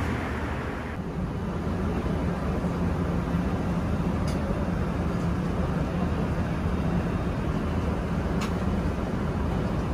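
Steady in-flight cabin noise of an Airbus A380: a constant low rush of engines and airflow, its upper hiss thinning about a second in. Two faint ticks sound partway through.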